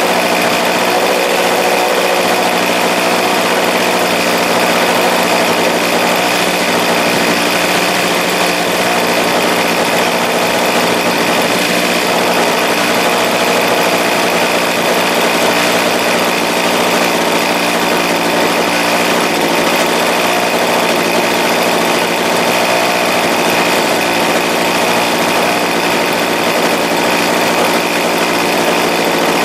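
Engine of a large radio-controlled Cap 580 model aerobatic plane idling steadily, propeller spinning.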